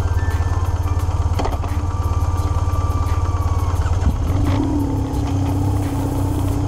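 Twin-cylinder adventure motorcycle engine running steadily with a fast, even low throb.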